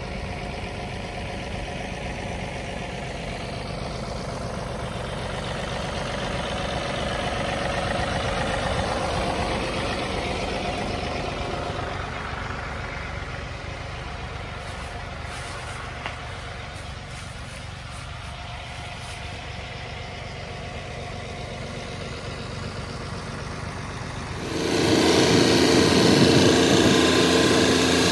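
John Deere 3038E compact tractor's three-cylinder diesel engine running steadily. About three quarters of the way through it abruptly gets much louder and closer.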